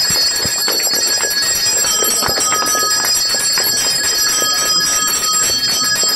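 Temple bells ringing continuously without a break at the homam's purnahuti, the final offering into the sacred fire.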